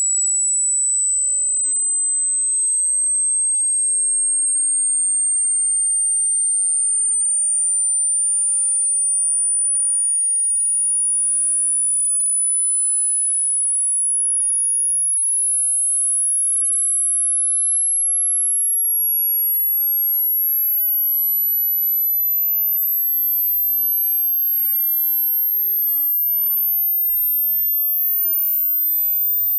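Hearing-test pure tone, very high-pitched, climbing slowly in small even steps at a steady loudness: a frequency sweep for finding the upper limit of one's hearing.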